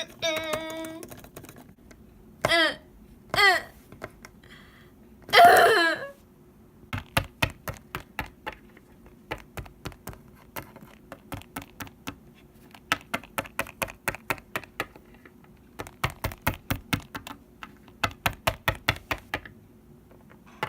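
A few short voiced sounds, then a long run of light, sharp clicks, about four a second, coming in bursts with brief pauses.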